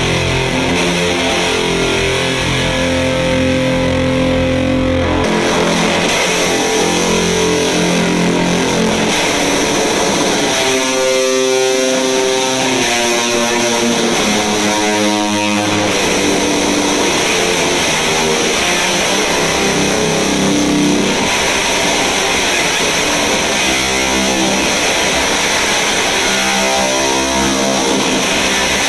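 Electric guitar played through stacked fuzz pedals into a Fender Deluxe Reverb amp, with thick, heavily distorted held chords and sliding notes around the middle.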